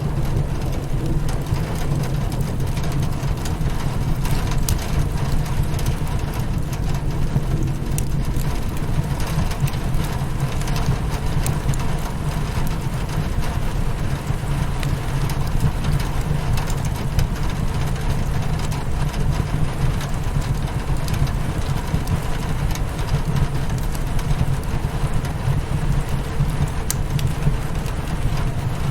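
Steady rain on a window glass with a wood fire crackling, over a continuous low rumble, with scattered sharp crackles and drips throughout.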